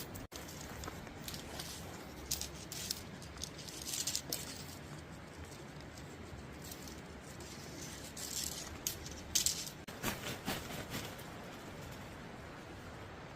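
Steady rush of flowing creek water, with scattered light rattling and rustling clicks between about two and eleven seconds in.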